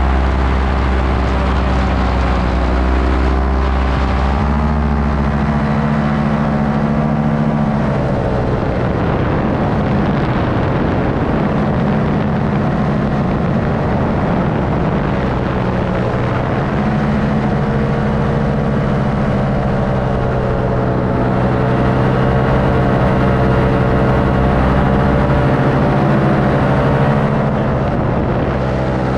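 Paramotor engine and propeller droning steadily in flight. The pitch steps up or down every few seconds as the throttle changes.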